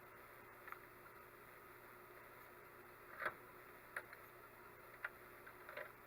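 Near silence with a handful of faint, short clicks and taps, the clearest about three seconds in.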